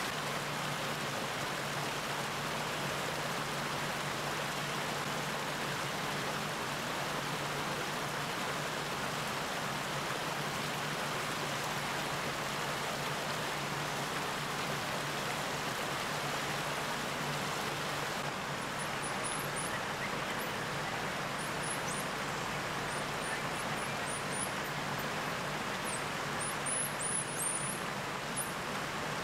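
Steady background rush with a low hum under it. From about two-thirds of the way through come many faint, very high, short chirps.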